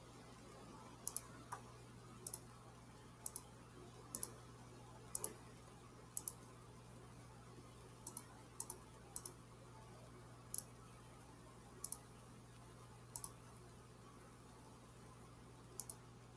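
Computer mouse button clicking about once a second, most clicks heard as a quick press-and-release pair. The user says this mouse is double-clicking when she does not mean it to.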